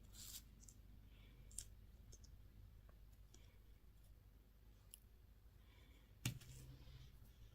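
Faint, sparse clicks and taps of small hard-plastic candy and toy packaging being handled, with a louder knock about six seconds in.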